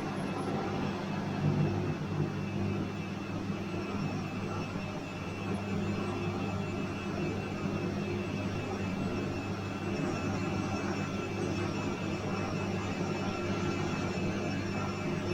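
Bosch washing machine running with a steady, even hum.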